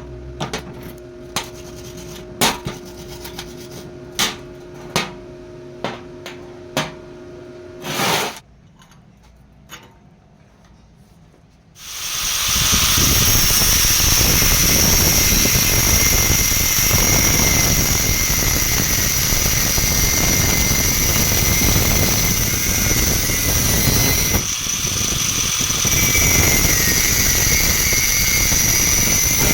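A series of sharp taps or knocks, then after a short lull an electric power tool starts up and runs steadily with a high-pitched whine.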